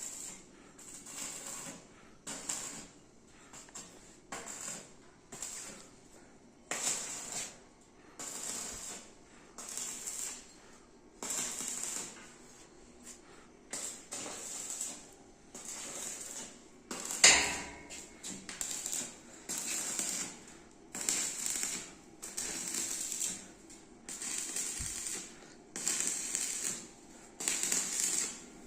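Electric arc welding laid down in a string of short crackling bursts, each about a second or less with brief pauses between, as when tacking or stitch-welding. A single sharp, loud clank stands out about two-thirds of the way through.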